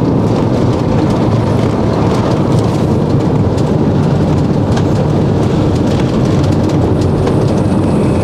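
Motorhome driving along a road: a steady rumble of engine and tyre noise, with a few light clicks.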